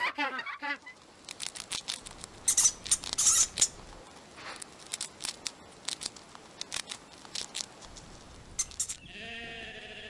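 A guinea pig crunching carrot sticks and hay: a run of sharp, irregular crunches and clicks, loudest a few seconds in. Near the end a sheep bleats; at the very start the tail of a penguin's call fades out.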